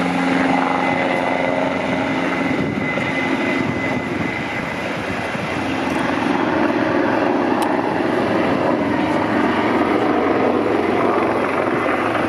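AgustaWestland AW189 twin-turbine helicopter flying overhead and turning away: steady rotor and turbine noise, with a high turbine whine that fades out about two seconds in.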